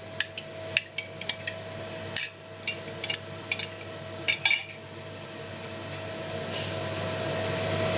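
A wooden spatula knocking and scraping sour cream out of a glass into a frying pan: a quick run of sharp taps and clinks against the glass and pan for about the first four and a half seconds. After that only a steady hum remains, slowly growing louder.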